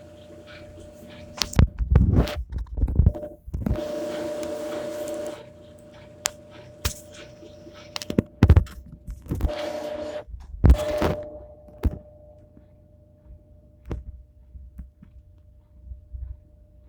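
Consul 11.5 kg washing machine running: a steady motor hum, two louder stretches of churning noise, and a series of sharp knocks and thunks.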